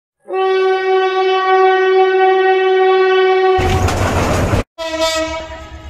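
Diesel locomotive horn sounding one long steady blast, then about a second of loud rushing rumble from a passing train that cuts off suddenly. The horn sounds again, a little lower in pitch, over the train's rumble near the end.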